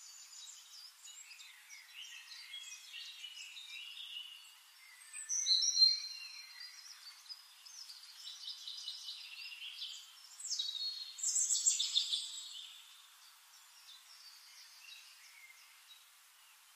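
Small birds singing and chirping in a run of quick warbled phrases, loudest about five seconds in and again around eleven to twelve seconds, thin-sounding with no low end.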